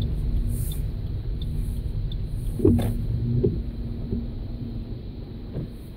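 Road noise heard inside a moving car: a low rumble of engine and tyres on wet streets, with a few short knocks, growing quieter toward the end.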